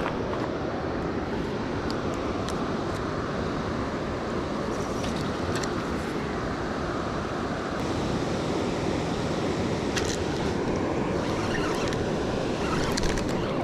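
Steady rush of high floodwater pouring through a river spillway, with a few faint clicks.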